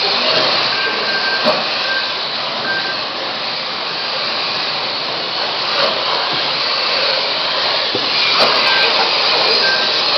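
Radio-controlled Mini class cars racing, their motors and tyres making a steady whirring whine. Short high electronic beeps sound every so often over it.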